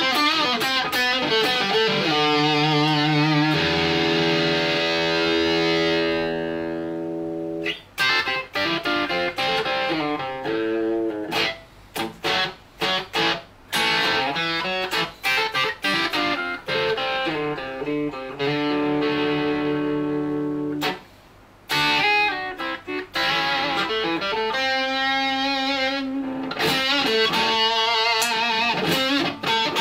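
Edwards ED-85TE electric guitar played through a Bugera 6262 valve amp head, picked up by the camera's microphone in the room. Fast lead runs, then a few held chords left to ring, a stretch of short choppy phrases with gaps, and fast runs again near the end.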